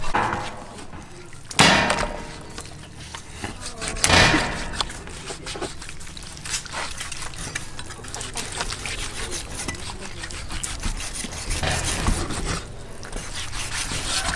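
Meat cleaver slicing raw pork belly on a wooden chopping block: scattered light clicks and scrapes of the blade, with two louder knocks about one and a half and four seconds in.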